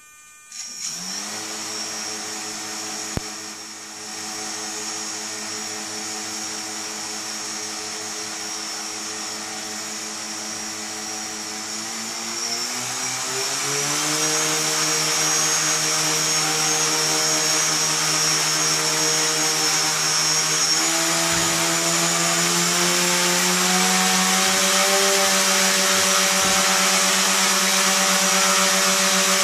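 GimbalBot's electric motors spin up its 8-inch carbon fiber propellers about a second in and run with a steady whine. The pitch climbs twice more, at about 13 s and 21 s, as the throttle is raised.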